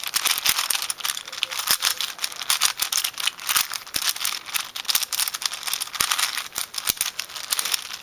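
A 5x5 Rubik's cube being turned quickly by hand: a rapid, continuous run of plastic clicks and rattles as its layers are twisted.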